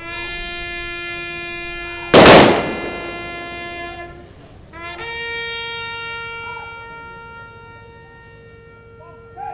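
A solo brass horn sounds a military funeral call in two long held notes, the second higher than the first and fading slowly. About two seconds in, a single loud gun volley of the funeral salute cracks over the first note and echoes briefly.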